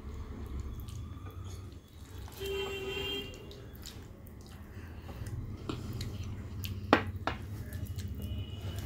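Soft wet food tipped from a glass bowl into a steel plate of dal and rice, with dripping, squishing sounds. A brief pitched sound comes about two and a half seconds in, and a sharp clink a little before the end, as the bowl is set down.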